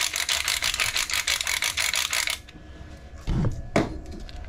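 Hand-turned pepper grinder grinding over a pot: rapid, even ratcheting clicks that stop a little past halfway through. Two short knocks follow near the end.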